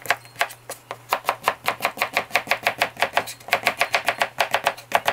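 A knife slicing a cucumber diagonally on a cutting board: quick, even knocks of the blade on the board, about five or six a second.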